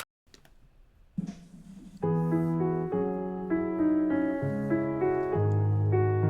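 Piano playing a run of chords, starting about two seconds in after a near-quiet opening.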